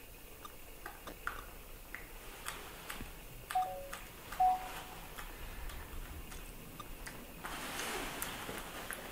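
Faint scattered small clicks and taps, with two short squeaks from a small animal about halfway through, followed by soft rustling from about seven and a half seconds in.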